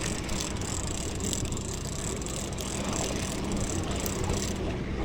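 Boat engine running steadily with a low hum, under a wash of wind and water noise, with a few light clicks.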